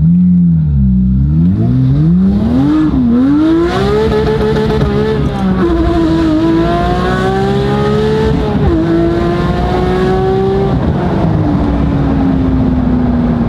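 Porsche 992 GT3's naturally aspirated flat-six through an IPE straight-piped exhaust, heard from inside the cabin. It swings up and down twice in the first few seconds, then pulls hard up through the gears, dropping in pitch at upshifts about six and nine seconds in. Near the end the pitch falls slowly as it eases off.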